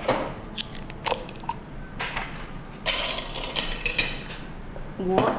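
Cutlery and dishes clinking and tapping at a meal table: a scatter of small clicks, with a denser clatter about three seconds in.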